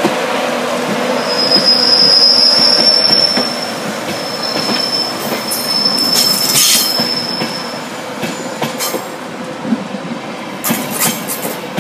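East Coast InterCity 225 Mark 4 coaches rolling past with a steady rumble. A high-pitched wheel squeal runs from about a second in to about eight seconds, with a short break in the middle. Sharp wheel clicks over the rail joints come in the second half.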